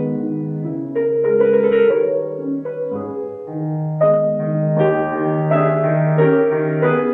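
Grand piano played solo: a slow piece of held chords under a melody line, with a louder chord struck about four seconds in.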